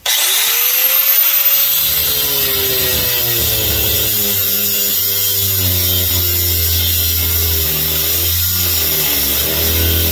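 Angle grinder switched on, its whine rising to full speed within the first second or two, then running steadily as its cut-off disc cuts into a brass pressure relief valve held in a vise, the motor pitch sagging and recovering under load.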